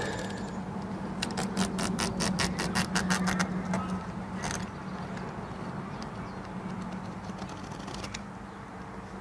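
Knife cutting through animal-proof screen mesh: a quick run of ticks, about five a second, for a couple of seconds starting about a second in, then a few scattered clicks. A steady low hum runs underneath.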